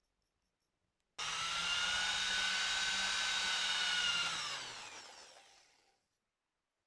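Small electric power tool motor switched on abruptly, running steadily for about three seconds, then switched off and winding down with a falling pitch until it stops.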